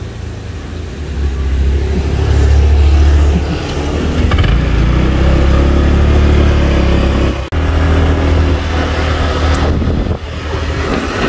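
A small motor vehicle engine running close by, growing louder over the first couple of seconds and then holding steady, with abrupt breaks near the end where the sound cuts; by the end it is a motor scooter being ridden.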